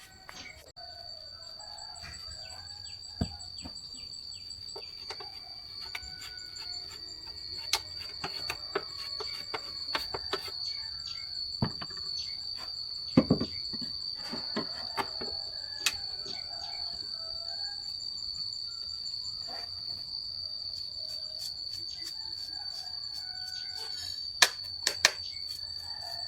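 Crickets or other insects trilling steadily, one high continuous note with a faster pulsing trill above it, and faint bird chirps. Scattered sharp clicks and knocks, a few louder ones about halfway through and near the end.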